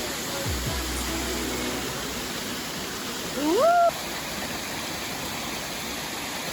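Steady rushing of a waterfall or stream. About three and a half seconds in comes one short, rising, voice-like call.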